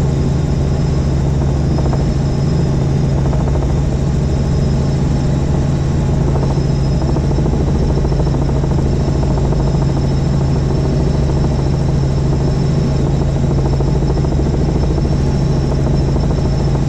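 Helicopter in flight: a steady, even drone of engine and rotor with a fast pulsing from the blades.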